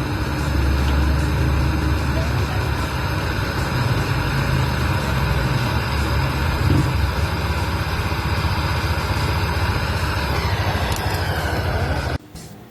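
Gas brazing torch flame burning with a steady roar, sealing the crimped and cut process tube of a refrigerator after freon charging. The sound cuts off suddenly near the end.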